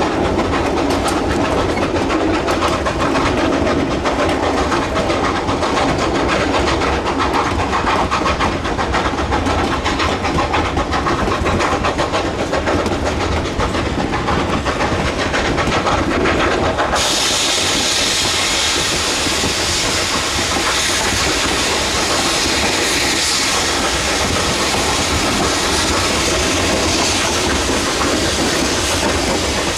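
Narrow-gauge steam-hauled freight train running, heard from one of its open cars: a steady rumble and clatter of the cars on the rails. About halfway through, a loud steady hiss comes in suddenly and holds.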